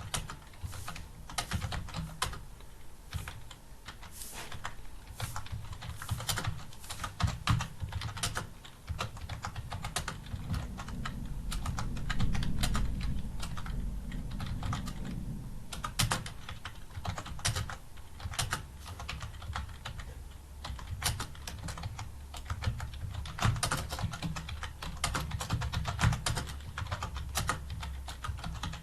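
Computer keyboard typed on continuously, irregular key clicks several a second as a passage is typed out at speed. A low rumble swells underneath for a few seconds in the middle.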